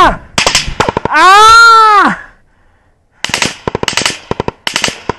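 Close small-arms fire in quick irregular bursts, a man's long loud shout about a second in, a short lull, then another run of rapid shots.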